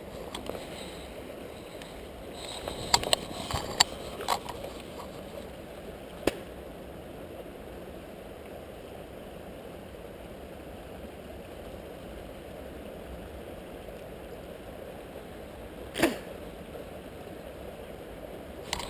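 Steady rush of a small creek where water spills over a rock into a pool. A cluster of sharp clicks and taps comes about three to four seconds in, a single click a little later, and a louder knock a few seconds before the end.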